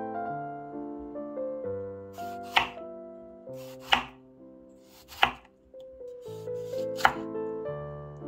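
Kitchen knife slicing through a tomato on a wooden cutting board: four sharp cuts, about a second and a half apart, over soft piano music.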